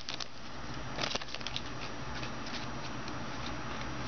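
Trading cards handled and sorted by hand: scattered light rustles and clicks of card stock, the clearest about a second in, over a low steady hum.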